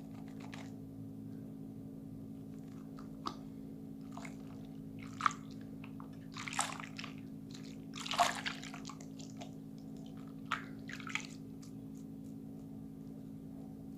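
Wet squishing of soapy hands working a bar of cold process soap into lather, in irregular short bursts, the loudest about six and a half and eight seconds in, over a steady low hum.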